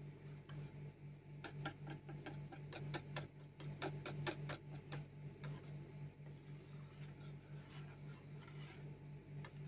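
A utensil stirring thin liquid batter in a plastic mixing bowl, clicking against the bowl: a quick run of light clicks from about one and a half to five seconds in, fainter after. A steady low hum runs underneath.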